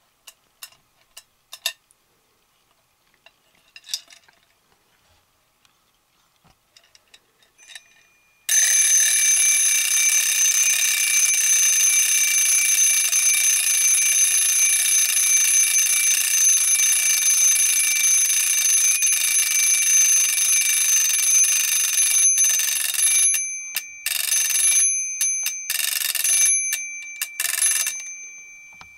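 Twin-bell alarm of a 1960s Creative Playthings see-through wind-up alarm clock going off: the hammer rattles rapidly between the bells in a loud continuous ring after a few soft clicks. Near the end the ringing stops and starts in short bursts, and the last strike leaves a bell ringing out and fading. The alarm mechanism still works.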